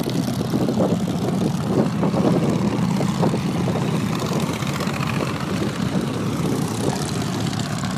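Several motorcycles riding past on a road, their engines giving a steady, loud drone.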